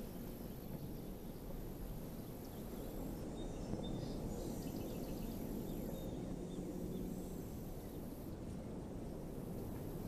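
Outdoor ambience: a steady low background rumble, with faint high chirps about three to seven seconds in.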